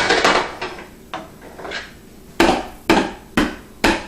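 Baby banging on a hard surface: a run of about eight sharp knocks, roughly two a second.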